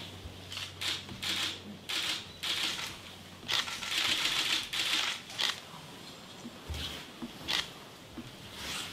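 Paper and cloth rustling as men draw lots from a wooden lottery box, in short irregular bursts, the longest stretch a few seconds in.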